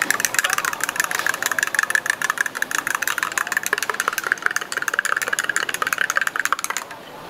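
Small electric appliance motor running with a fast, even rattle, cutting off abruptly near the end.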